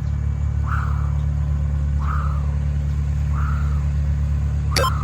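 A steady low engine-like hum runs under soft rhythmic breaths that come about every 1.3 seconds as ab crunches are done. Near the end a sharp electronic beep sounds once, the start of a workout interval timer's countdown.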